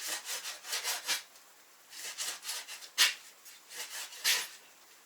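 Knife sawing through lavash on a cutting board in a series of short rasping strokes, with a sharper knock about three seconds in; the knife is cutting poorly.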